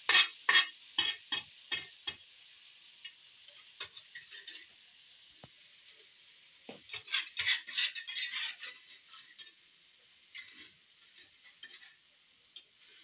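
Metal spatula scraping ground spice paste (shallot, garlic, chilli, kencur) around a stone mortar and stirring a wok, in quick scraping strokes about three a second near the start and again around the middle. A faint sizzle of oil heating in the wok runs between them.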